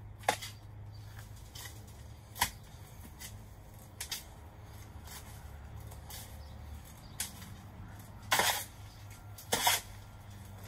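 A shovel digging and turning soil and peat moss in a wheelbarrow: a few sharp knocks of the blade, then two louder gritty scrapes near the end.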